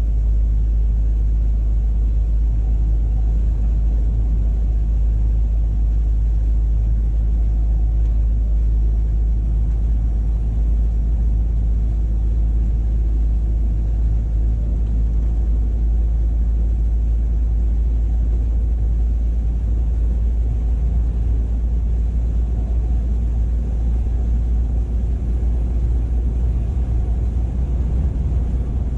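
Scania R480 truck cruising on the road, heard from inside the cab: a steady low rumble of engine and road noise.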